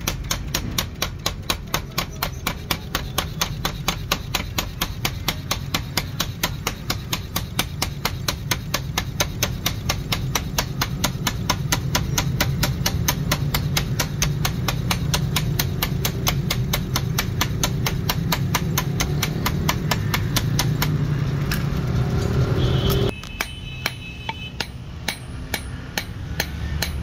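7.5 kg power forging hammer running with a steady low hum and striking hot steel in rapid, evenly spaced blows as a sickle blade is drawn out between its dies. About 23 seconds in it stops and a hand hammer strikes the blade on a steel anvil, about two blows a second.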